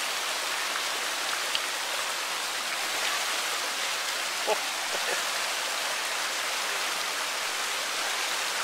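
Shallow rocky stream rushing and splashing over stones, as a steady hiss. A short click comes about a second and a half in, and a brief sharper sound comes about halfway through.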